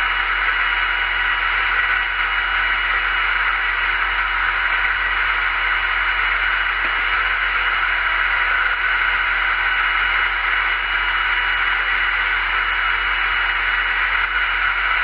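Milling machine running, drilling a hole in a clay pigeon trap's arm mount: a steady hiss with a fixed whine that doesn't change.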